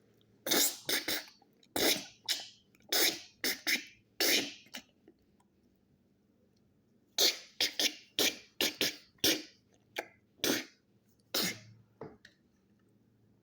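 A person making short, breathy mouth sound effects for digging, in two runs of quick bursts with a pause between them.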